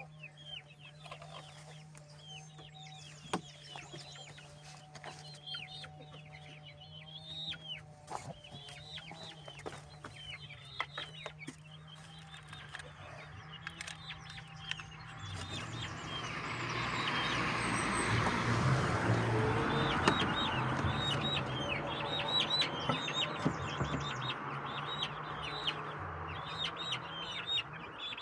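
Chickens clucking and chicks peeping in many short, high, falling chirps, over a steady low hum. About halfway through, a louder rushing noise comes up and holds.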